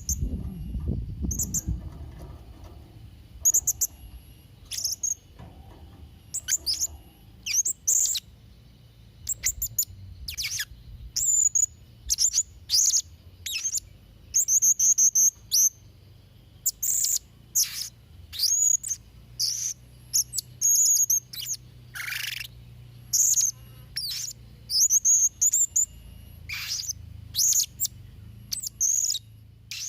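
Blue-crowned hanging parrot (serindit) calling in a rapid string of short, shrill, very high chirps, many sliding down in pitch, coming in irregular bursts with brief gaps.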